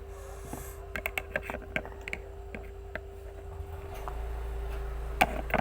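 Scattered light clicks and taps of a spoon and small bowl being handled while a lime and sweet soy sauce mixture is prepared, with one sharper click about five seconds in, over a steady faint hum.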